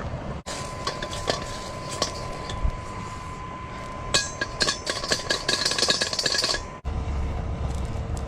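Metal cookware clinking as ribs are handled in a pot: scattered knocks at first, then a quick run of clinks in the middle. After a cut near the end, a low rumble with a steady hum.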